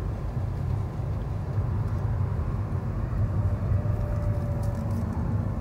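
Steady low rumble of a Lada Vesta driving at low speed, heard from inside the cabin: engine and tyre noise with no sudden events.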